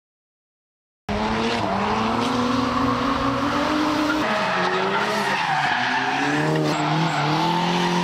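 After a second of silence, a Hyundai Genesis Coupe drift car sliding sideways cuts in with its tyres squealing. Under the squeal its engine revs rise and fall as the driver works the throttle through the drift.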